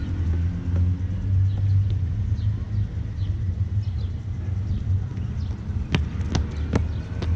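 Steady low rumble, with three or four sharp taps about six seconds in: running footsteps in trainers on stone paving close by.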